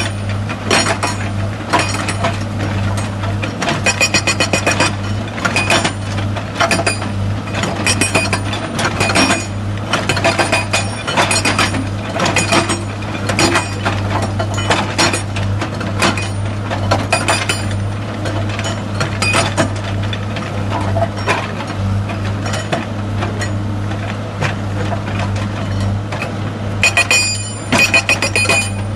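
Repeated metallic clinks and knocks, several a second, with a bright ringing tone, over a steady low hum.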